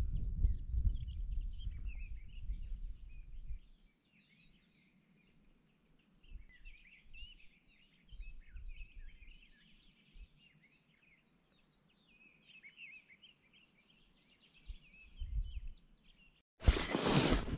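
Small birds chirping and twittering, with gusts of wind rumbling on the microphone in the first few seconds and again now and then. Near the end a sudden loud rustling starts close to the microphone.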